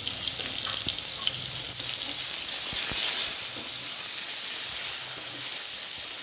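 Potato wedges sizzling in hot oil in a kadai, turned with a metal spatula that knocks against the pan about a second in and again about three seconds in.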